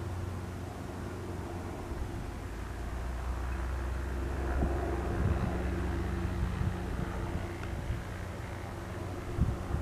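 Cessna 172N Skyhawk's four-cylinder Lycoming piston engine and propeller humming at low landing power as the plane touches down and rolls out, growing louder in the middle and then easing off. A couple of low thumps from the camera being handled.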